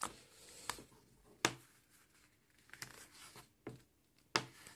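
A paper booklet and its card packaging being handled and opened: light paper rustling with about six sharp taps and clicks spread through, the loudest about one and a half seconds in and near the end.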